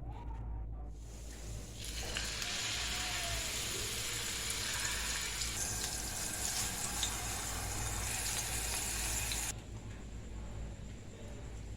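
Galavat kebabs sizzling as they shallow-fry in oil: a dense frying hiss that starts about two seconds in and cuts off suddenly near ten seconds, over a low steady hum.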